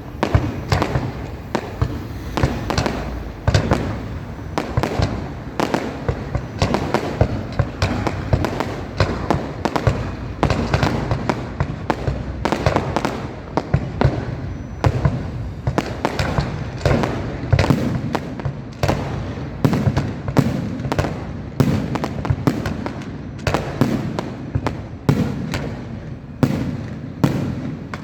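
Fireworks display going off, a dense run of bangs and crackles, several a second, with no let-up.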